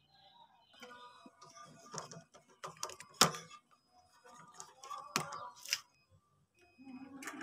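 Handling noises on a small GX200-type gasoline engine, which is not running: scattered clicks, taps and small rattles of the plastic air-cleaner housing and metal parts, with one sharp knock about three seconds in. Near the end a steady low hum starts.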